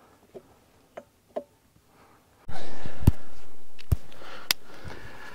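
A few faint clicks of a gloved hand feeling around the pump coupler inside the bell housing. About two and a half seconds in, a steady hiss starts suddenly and slowly fades, with a few sharp clicks over it.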